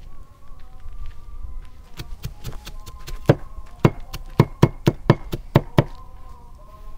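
A knife chopping on a cutting board: a run of about fifteen sharp knocks at roughly four a second. The chopping starts about two seconds in, gets louder partway through, and stops near the end.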